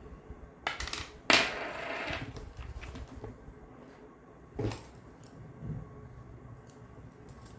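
Small cosmetic containers clattering on a table as they are picked up and moved about: a click, then a sharp knock about a second in with a brief rattle after it, and another knock in the middle.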